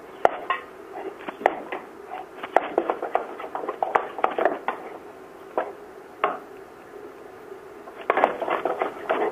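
Wooden spoon stirring thick choux paste in a stainless steel saucepan over the heat: irregular scraping and knocking against the pan, busier near the end. The paste is being dried out and is starting to catch on the bottom of the pan.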